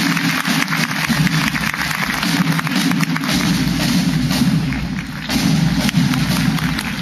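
Indian Army military marching band playing on the march, with rapid snare drum strokes and bass drum beats most prominent.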